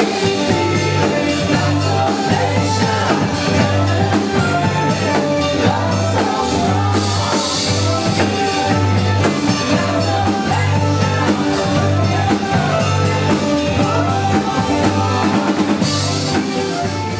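A live cover band playing rock music, loud and steady, with a drum kit keeping the beat under a pulsing low bass line.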